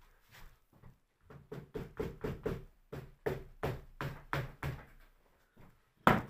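Porcelain doorknob tapping the leather horn wrap on a western saddle horn to smooth out the hammer marks: runs of dull knocks about four a second, with one sharper, louder knock near the end.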